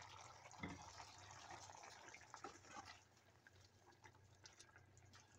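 Near silence, with faint liquid sounds and a few soft ticks from a pan of chicken and pumpkin in coconut-milk sauce simmering.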